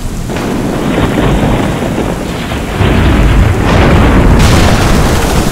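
Thunderstorm sound effect: rolling thunder booms over a steady hiss of rain, swelling louder about three seconds in.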